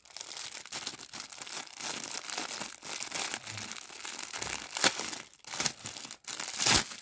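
Packaging crinkling and rustling as the robot sweeper's accessories are unpacked by hand, with two louder sharp crackles about five seconds in and near the end.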